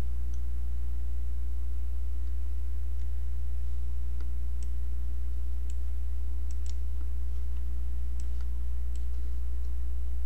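Steady low hum with a handful of faint computer mouse clicks scattered through it.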